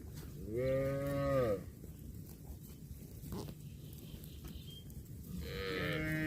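Cow mooing twice: a call of about a second, each dropping in pitch at its end, then after a pause a second moo starting near the end.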